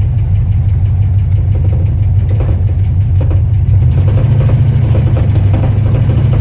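1974 Ford F250 pickup engine idling steadily, a loud low rumble, slightly louder from about four seconds in.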